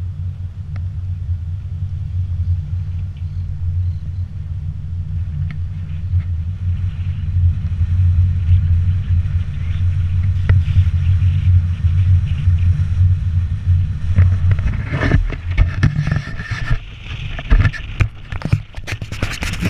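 Low, steady rumble of a moving vehicle, engine and road noise through a GoPro. Near the end the rumble drops away into a run of close knocks and clicks as the camera is handled.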